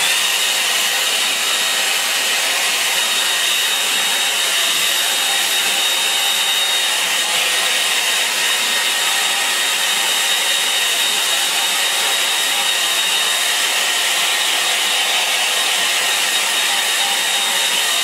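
Hand-held hair dryer blowing steadily on one setting over wet watercolour paper: an even rush of air with a thin high whine.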